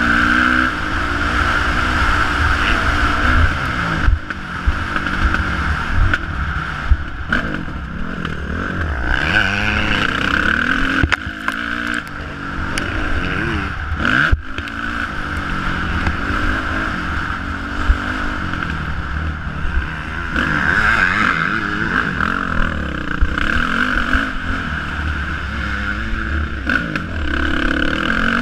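Motocross dirt bike engine revving up and down as it is ridden over a dirt track, heard from the rider's helmet camera, with sharp knocks from the bike hitting bumps.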